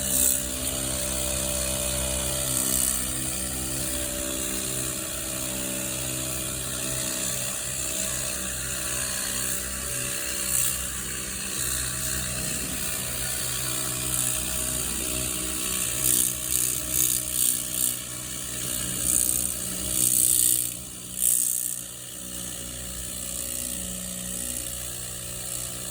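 Cordless battery pressure washer running, its small electric pump motor giving a steady hum while the water spray hisses in bursts, strongest in the second half.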